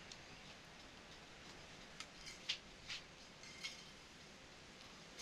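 Faint room noise with a handful of light clicks and taps about two to four seconds in, from small items being handled on a shop counter.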